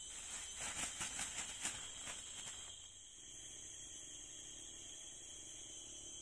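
Steady high-pitched insect chorus, one shrill tone with fainter overtones above it. In the first three seconds a string of light clicks and rustles rides over it.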